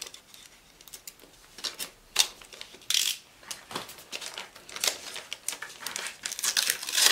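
Paper and tissue paper rustling and crinkling in irregular short bursts, hands handling an envelope and the tissue wrapping of a box's contents.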